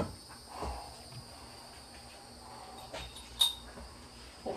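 Quiet handling of dishware: a few light knocks and one sharp ceramic clink about three and a half seconds in, over a steady faint high-pitched chirring in the background.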